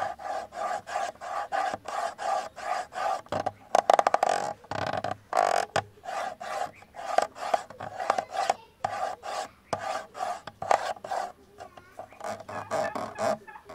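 Scratching strokes on a camera body, repeated about two times a second with a rasping sound.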